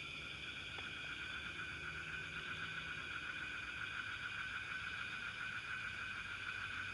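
Steady, high-pitched insect chorus of several overlapping trilling tones, with a faint low hum beneath.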